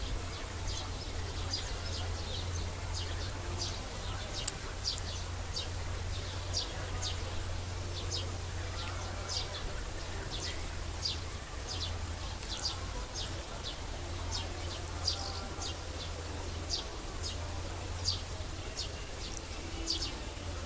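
Small birds chirping in short, high, sharp notes, irregularly about two a second, over a low steady rumble.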